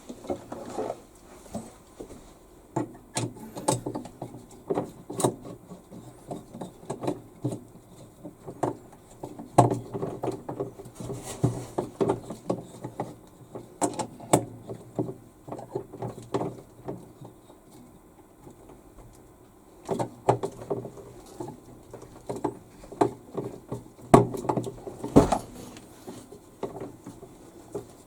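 Irregular clicks and knocks of plastic and metal washing-machine parts being handled and fitted back together by hand, with a few louder knocks.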